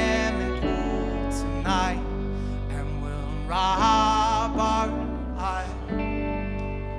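Slow indie-rock band music with a sustained low bass. Held notes with a wavering vibrato rise over the guitar and strings about two seconds in and again in the middle. It settles onto a steady held chord near the end.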